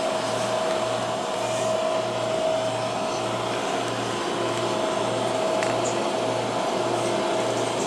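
MTR Tung Chung Line CAF-built train heard from inside the car while moving: a low, even thumping about twice a second from a flat spot on a wheel, over steady running noise and a steady motor whine.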